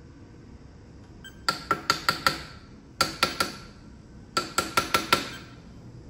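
Metal clinking from a small hand tool working the mount of a VTOL lift motor on a carbon boom while it is levelled: three quick runs of four to six sharp, ringing clinks.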